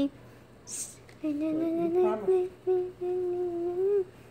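A child humming a short tune of several held notes, starting about a second in, after a brief hiss.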